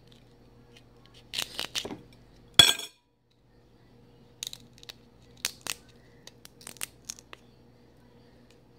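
Dungeness crab leg shell being cracked and picked apart by hand: a scattered series of small sharp cracks and clicks, the loudest about two and a half seconds in.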